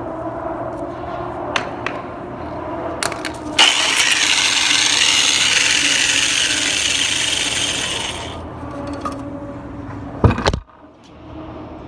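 Hand work on an exhaust fan's shaft assembly: a few sharp metallic knocks, and a loud hiss lasting about four and a half seconds that starts suddenly about three and a half seconds in, over a steady background hum.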